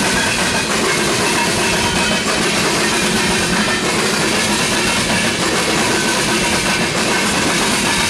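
Freight train of loaded ethanol tank cars rolling past, steel wheels clacking over the rails in a loud, steady rumble.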